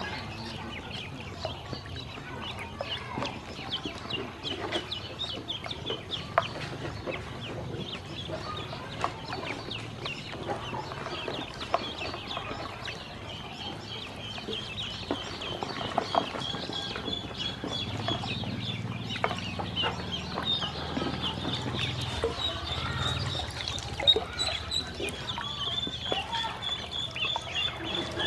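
A group of ducklings peeping: many short, high calls overlapping in a steady chatter that grows denser in the second half.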